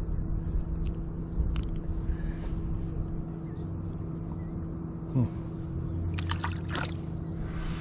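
A steady low mechanical hum runs throughout, with a few light clicks between six and seven seconds in as a bluegill is unhooked and handled.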